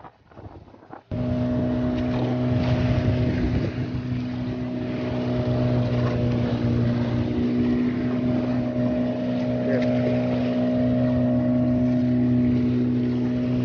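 An outrigger fishing boat's engine starts being heard about a second in and runs steadily at constant speed, with wind and sea noise around it.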